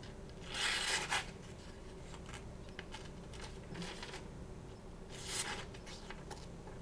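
Freshly sharpened knife made from an old saw blade drawn through a cut to test its edge: two short rasping slicing strokes, the first about half a second in and the second about five seconds in, with a few light ticks between.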